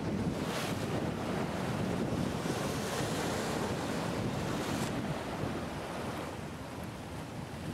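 Wind buffeting the microphone, a steady rushing noise that eases a little near the end, over the wash of choppy river water.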